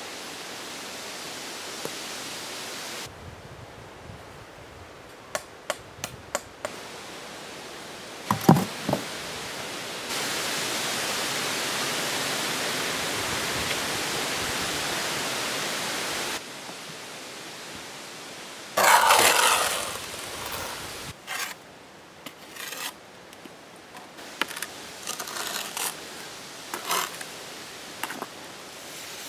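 Steel mason's trowel scraping and tapping wet mortar on concrete blocks, with scattered clicks, one heavy knock about eight seconds in and a loud scrape at about nineteen seconds. A steady hiss runs under parts of it.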